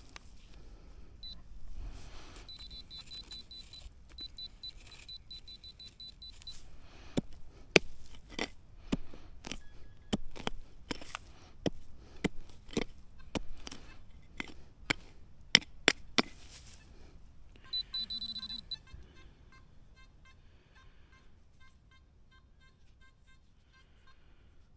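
Metal detector beeping: a rapid run of high beeps for a few seconds, then a string of about twenty sharp knocks, then quick short beeps at several pitches that fade out near the end.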